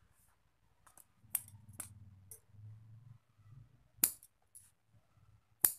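Steel scissors snipping through macrame cord ends: several sharp metallic snips, the loudest about four seconds in and near the end, with soft rustling of the cord being handled between them.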